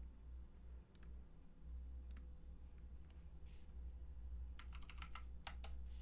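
Two separate clicks, then a quick run of about ten keystrokes on a computer keyboard near the end, as a password is typed, over a faint low hum.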